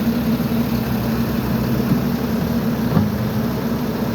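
Diesel engine idling steadily, with a short knock about three seconds in.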